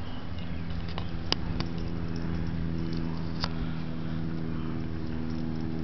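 A steady engine drone that sets in about a second in and holds an even pitch, with a few sharp clicks or snaps over the first few seconds.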